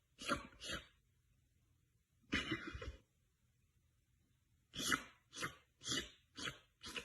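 A person making wet licking and slurping noises with their mouth to imitate a cat grooming itself: two quick licks, a longer slurp, then a run of five licks at about two a second.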